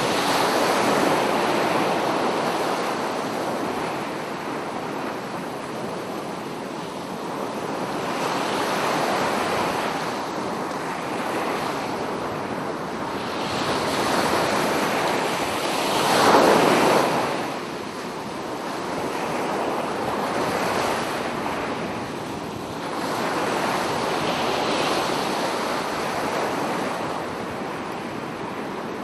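Ocean waves breaking on a beach: surf that swells and falls back every few seconds, with the loudest wave crashing about halfway through.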